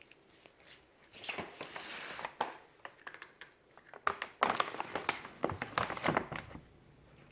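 Crinkling and rustling with quick sharp clicks and taps, in two spells: one about a second in, and a busier one from about four seconds in.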